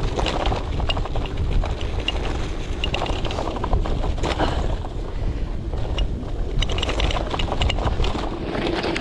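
Gravel bike rattling and clattering over rough, frozen-solid ground, with rapid clicks and knocks throughout, under steady wind buffeting the microphone.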